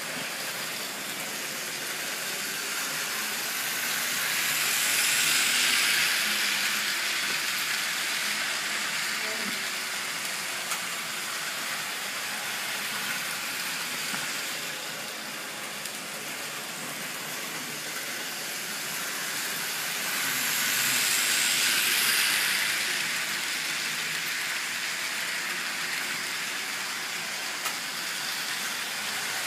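Small electric motors of a vintage Märklin HO model train and Faller AMS slot cars running on the layout: a steady hissing whir that swells and fades twice, about five and about twenty-one seconds in.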